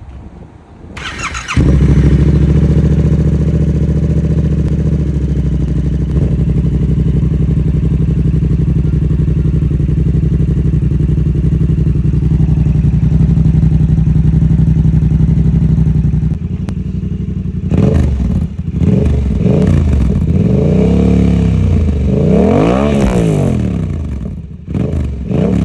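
Yamaha R7's 689 cc CP2 parallel-twin, on an M4 full-system exhaust without its dB killer: the starter cranks briefly, the engine catches about a second and a half in and idles steadily. From about two-thirds of the way through it is revved in a series of throttle blips, each rising and falling in pitch, the biggest near the end.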